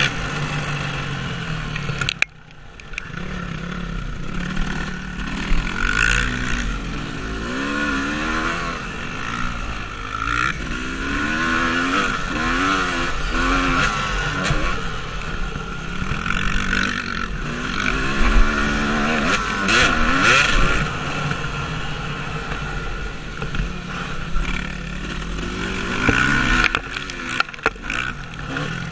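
Dirt bike engine revving up and down over and over as it is ridden, its pitch rising and falling with the throttle and gear changes. The sound drops off sharply for a moment about two seconds in, then picks up again.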